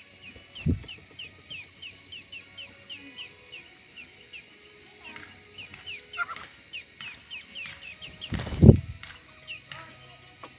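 Aviary birds chirping: a fast run of short, high, falling chirps, about three to four a second, with other calls mixed in. A dull thump comes just under a second in, and a louder one about eight and a half seconds in.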